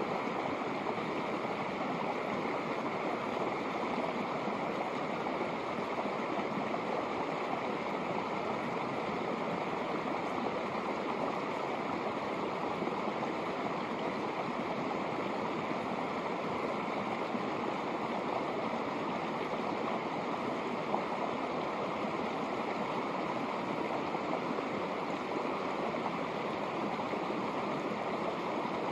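Shallow snowmelt mountain creek flowing over rocks: a steady sound of running water.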